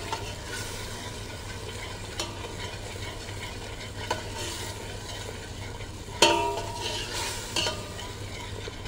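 Onion-tomato masala sizzling as it cooks in a stainless steel pot on a gas burner while a metal ladle stirs it, with a few small scrapes. About six seconds in the ladle knocks against the pot with a ringing clank.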